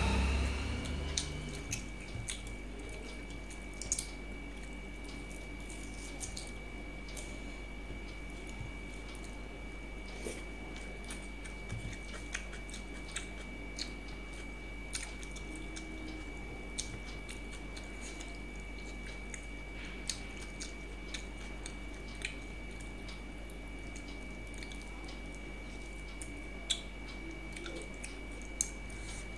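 A person eating rice by hand: chewing and soft wet squishing as fingers mix the rice on a steel plate, with scattered small clicks. A steady low hum and a thin high tone run underneath.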